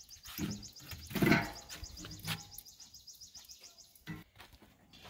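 Metal clanks and knocks from a charcoal grill as its lid is held open and the firebox is worked, the loudest about a second in. A small bird trills in the background, a fast even run of high notes that stops about three seconds in.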